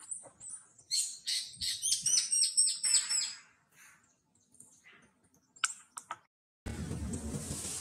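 A bird chirping in a rapid run of high calls, about four or five a second, for a couple of seconds. A few faint clicks follow, and near the end a steady rushing noise cuts in.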